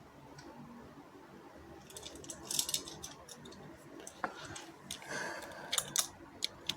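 Quiet handling noises of small hard objects: scraping, rustling and scattered clicks, with a sharper click about four seconds in.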